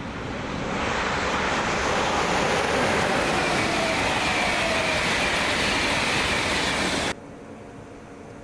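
A train passing through the station at high speed without stopping: a loud, steady rush of wheels and air that builds over the first second, with faint tones sliding slowly lower as it goes by. The sound cuts off suddenly about seven seconds in.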